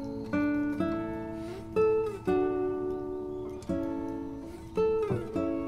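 Background music: an acoustic guitar playing plucked notes and chords, each fading after it is struck, with a few sliding notes.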